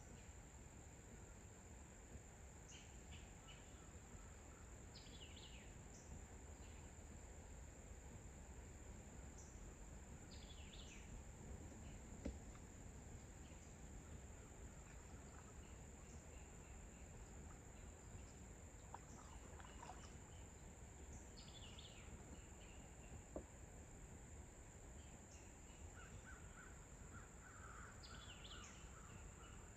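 Faint pond-side nature ambience: a steady high-pitched insect drone, with birds giving short falling calls every few seconds and a quick run of chattering calls near the end. Two small clicks stand out, about twelve and twenty-three seconds in.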